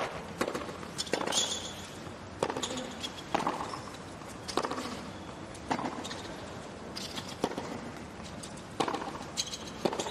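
Tennis rackets hitting the ball back and forth in a rally, a sharp pop roughly once a second, with a few short shoe squeaks on the hard court.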